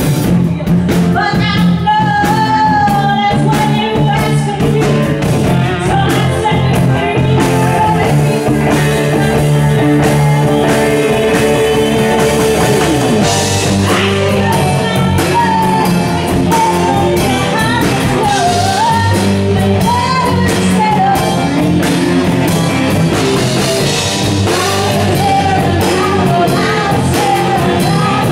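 A woman singing lead into a microphone with a live rock band behind her: guitar and drum kit.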